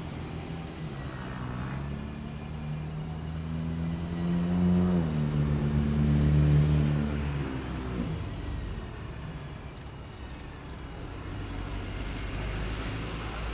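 A road vehicle's engine passing close by. Its note rises as it speeds up, drops suddenly about five seconds in as at a gear change, holds, then fades away after about eight seconds.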